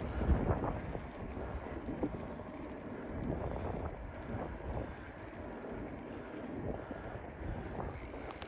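Strong wind buffeting the microphone of a camera worn by a bicycle rider, a rushing noise that gusts loudest at the start and then eases.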